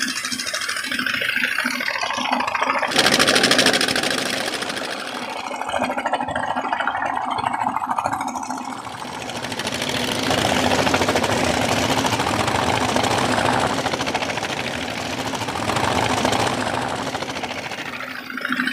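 Engine of a pontoon sand-suction machine running steadily with an even pulsing hum, while a wet sand-and-water slurry gushes from its discharge pipe into a steel dump-truck bed.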